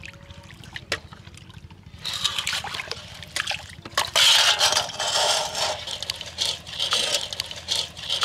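Muddy water and live catfish tipped from a steel bowl into a steel basin: splashing, sloshing and scraping in mud that starts about two seconds in and is loudest a little after four seconds.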